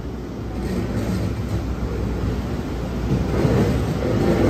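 Kyoto Municipal Subway 20-series train running past close by, its running noise growing louder through the first three seconds.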